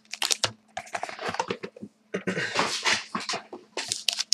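Hands handling a cardboard card box and wrapped card packs: irregular rustling and crinkling with light clicks and taps.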